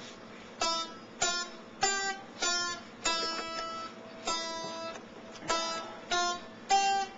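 Guitar music: plucked chords struck at an even pace, nearly twice a second, each ringing out and fading before the next.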